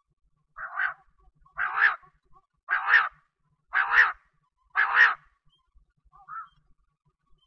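Quail calling: five loud, harsh double-noted calls about a second apart, then a fainter one, with soft short chirps around them.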